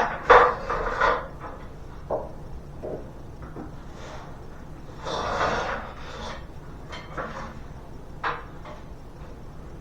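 A QuickJack lift frame and its pucks being set in place on a concrete floor: a few sharp knocks at the start, a scraping slide about halfway through, then a couple of single clicks.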